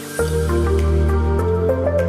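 Background music in a calm new-age style. A deep bass and fuller chords come in just after the start, under a simple melody with light, evenly spaced ticking percussion.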